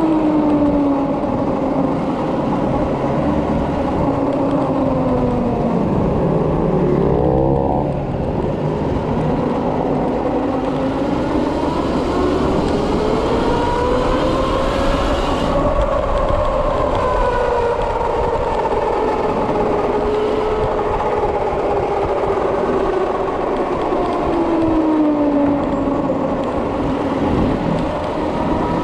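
Electric motor whine from a Kawasaki KLX electric conversion, rising in pitch as the bike speeds up to its highest about halfway through, then falling as it slows, over steady wind and road noise.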